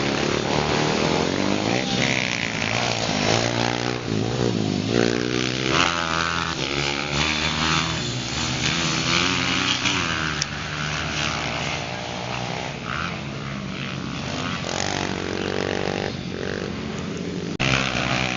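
Small dirt bike engines revving as they ride, the pitch climbing and dropping again and again, with more than one engine heard at times. The sound changes suddenly near the end.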